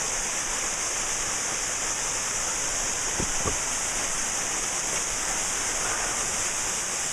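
Waterfall rushing steadily at close range, a constant hiss of falling water.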